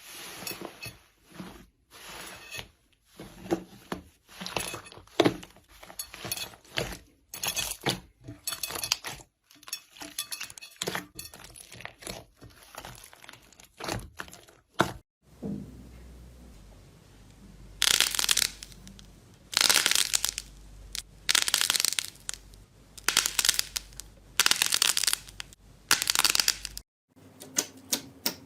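Slime being squeezed and worked by hand, crackling and popping in quick short bursts. About halfway through it changes to longer, noisier squishes, a few seconds apart, over a low hum.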